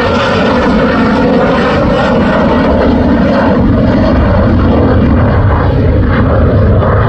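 Mitsubishi F-2 fighter's single afterburning turbofan running loud and steady on landing approach, with the low rumble building in the second half as the jet draws closer.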